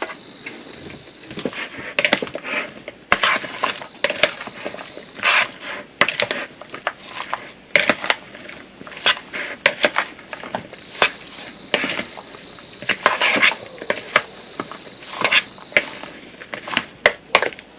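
Utensils scraping and clinking against a bowl while tossing a salad, in irregular short strokes.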